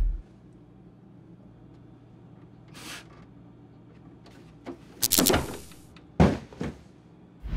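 A man thrown backward from a fridge: a loud burst of noise about five seconds in, then a heavy thud as he hits the floor just after six seconds and a smaller knock after it, over a low steady hum.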